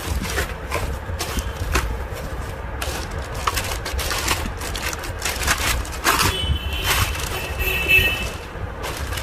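Hands handling equipment and packaging: irregular clicks, knocks and rustles over a steady low hum, with a brief high squeak twice in the second half.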